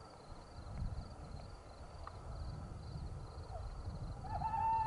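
Night ambience: an owl hoots with a quavering call near the end, over a steady low rumble and a faint, regular high chirping.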